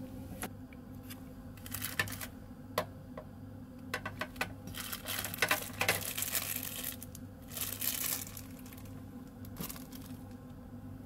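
A clear plastic bag holding earphones crinkling as a hand handles it, loudest in a long rustle from about four and a half to seven seconds in and again near eight seconds. Scattered light clicks and taps come before and after, all over a steady low hum.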